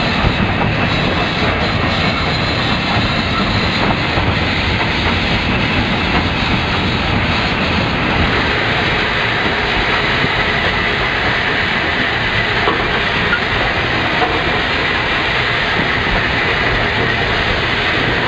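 Cab noise of an LMS Black Five 4-6-0 steam locomotive under way: a steady clatter and rumble of wheels on rails, with the footplate fittings rattling and steam hissing.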